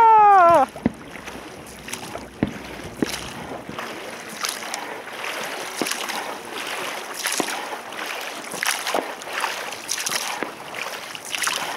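A shouted "Ura!" that falls in pitch at the start, then distant fireworks popping and crackling at irregular intervals over a steady wash of water and wind.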